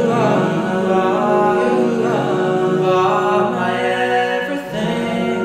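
Layered a cappella male vocal harmonies, one singer multitracked: several voices hold a sustained chord while higher lines move over it.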